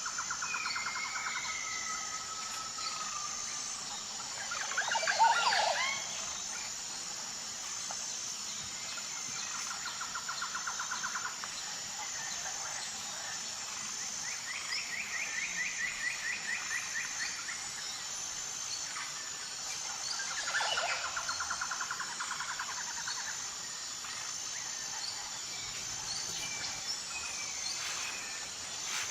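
Rainforest ambience: a steady high insect drone with a regular pulsing beat, under repeated trilling bird calls. Louder calls stand out about five seconds in and again about twenty-one seconds in.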